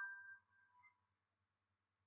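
The tail of a slowed-down logo jingle: a few steady high whistle-like tones that die away within the first half second, then near silence.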